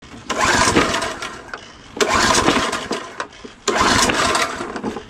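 Gas walk-behind lawn mower with three loud surges about every second and a half, each starting suddenly and fading away over about a second.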